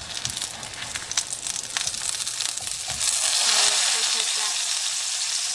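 Parmesan-breaded chicken breast fillets sizzling in hot vegetable oil in a frying pan, with a few sharp clicks. The sizzle grows louder about three seconds in.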